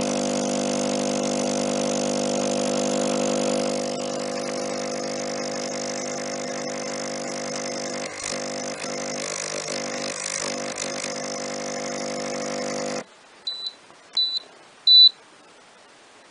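Airthereal AH1000 ozone generator running with a steady hum and hiss, with a few light handling knocks in the middle. It cuts off suddenly about 13 seconds in, and three short high beeps follow, the last the loudest, as the unit switches off.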